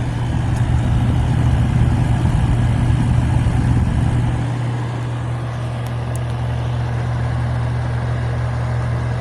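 1983 General Electric Carry Cool window air conditioner running, with a steady hum under the even rush of its fan. A deeper rumble eases off about halfway through.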